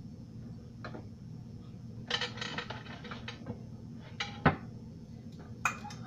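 Scattered light clinks and taps of kitchenware being handled, with a small cluster about two seconds in and one sharper knock about four and a half seconds in.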